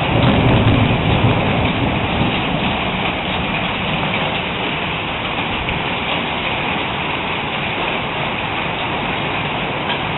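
Hail falling hard in a storm, a steady dense hiss of stones striking the ground and surroundings, with a low rumble under it for the first couple of seconds.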